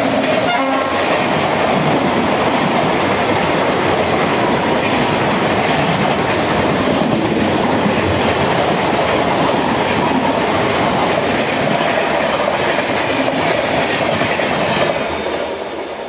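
Two electric trains crossing at speed on adjacent tracks: an express hauled by a WAP-7 electric locomotive and an ICF EMU local. Their wheels clatter over the rail joints in a loud, continuous rumble. A short horn note sounds right at the start, and the rumble fades in the last second or so as the trains move away.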